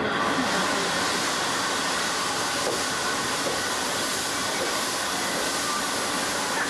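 Steam-hauled train with vintage passenger cars rolling slowly into a station, heard from an open carriage window, with a steady hiss that sets in sharply at the start and holds at an even level.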